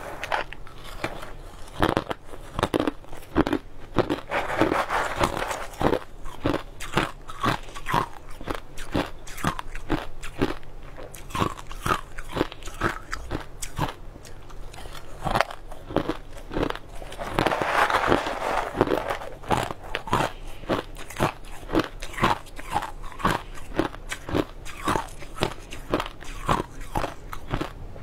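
Ice cubes being bitten and crunched in the mouth: a run of sharp, crisp crunches one after another, with two longer spells of dense crackling about four and eighteen seconds in.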